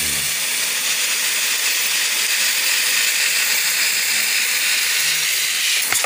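Steady hiss of a water spray jet from a hand sprayer wand hitting the soaped blower and coil of a split air conditioner's indoor unit, cutting off at the very end as the sprayer runs out of water.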